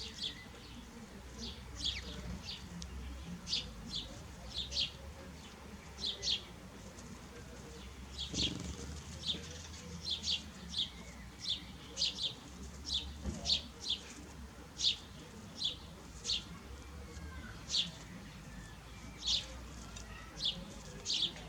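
Small birds chirping: many short, high chirps, each dropping quickly in pitch, repeated at irregular intervals about every half second and often in pairs.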